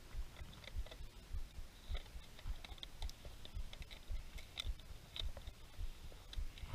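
Thin plastic ayran bottle being cut open with a knife and torn apart by gloved hands: irregular crackles and clicks of the plastic over a low rumble.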